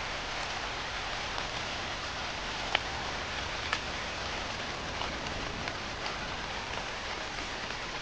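Steady rain, an even hiss with the odd louder drop landing close by.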